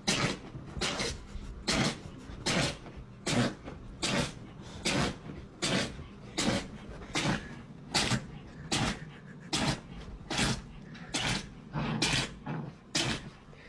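A dog sneezing over and over in a long unbroken fit, one sharp sneeze a little under every second, all about equally strong.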